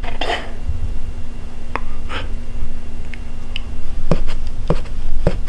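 A husky's paw tapping on a gift box lid, several light taps spread out, the last three about half a second apart, with a breath or sniff near the start.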